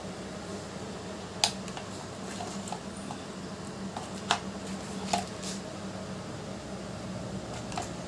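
Hands handling test leads, alligator clips and a small plastic tester box: a few sharp clicks and taps, the loudest about a second and a half in and just past four seconds in, over a steady low hum.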